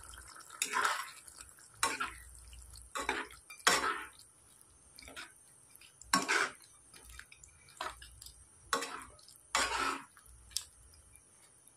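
A metal spoon stirring a thick chicken curry in a non-stick kadai: short, uneven scrapes and clinks against the pan with wet slaps of gravy, about one a second.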